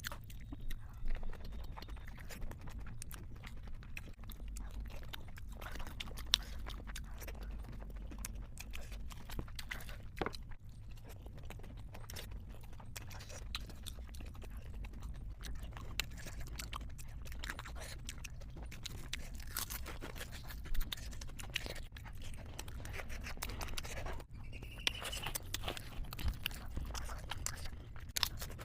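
A person chewing and eating momos in spicy jhol gravy close to the microphone: wet mouth sounds with many short, scattered clicks, over a faint steady low hum.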